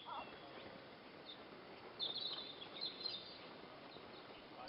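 Faint outdoor ambience with small birds chirping: a cluster of short, high calls about two to three seconds in.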